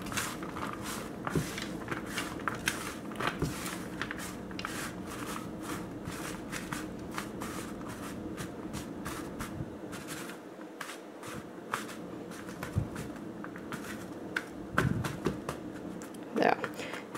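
Hand tossing oiled, seasoned spiralized sweet potato curls on a metal sheet pan: continuous soft rustling and squishing with many small clicks.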